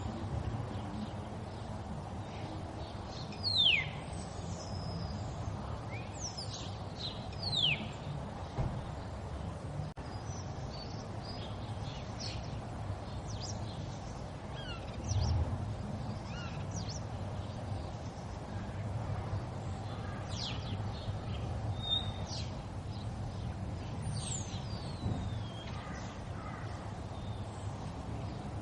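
A river running steadily with birds calling over it: scattered short chirps, and two loud falling whistles about three and a half and seven and a half seconds in. A brief low thud comes about fifteen seconds in.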